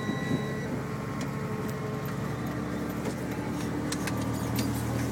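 Refuse truck engine running steadily at a low idle, with a few faint clicks.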